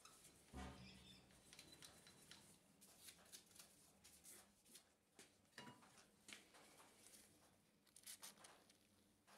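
Near silence: faint scattered clicks and scrapes, with a soft low knock about half a second in and another a little past the middle.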